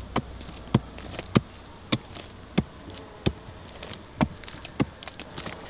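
A hand tool chopping into a clay bank, digging out soil: sharp separate strikes roughly every half second to a second.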